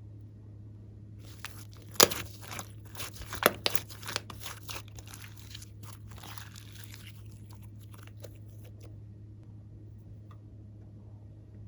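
Glossy slime being worked by hand, giving a run of crackling, crunchy pops for about five seconds, two sharp snaps the loudest, before it goes still.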